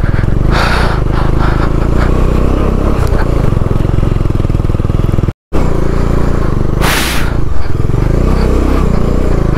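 Motorcycle engine running as the bike climbs a rough, bouldery gravel track, heard from the rider's seat. There are two short bursts of hiss, and the audio cuts out for an instant about halfway through.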